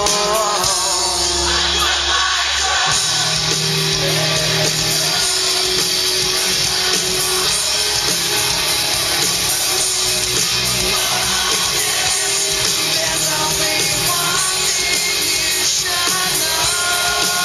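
Rock song with sung vocals and steady bass: background music.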